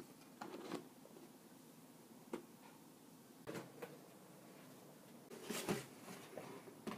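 Cardboard packaging being handled and opened: a few scattered soft knocks, scrapes and rustles, the loudest cluster about five and a half seconds in.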